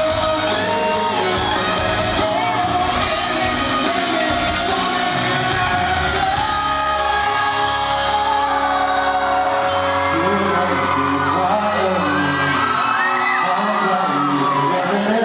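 Live band playing a rock song, with a man singing over it.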